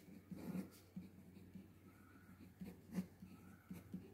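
Ballpoint pen writing on paper: faint, irregular scratching strokes and small ticks as a line of words is written out.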